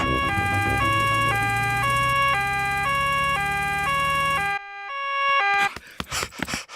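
Cartoon two-tone emergency siren (nee-naw) on the doctor's arriving vehicle, swapping between a high and a low note about every half second, over a low engine hum. The hum stops about four and a half seconds in and the siren ends a second later, as the vehicle pulls up.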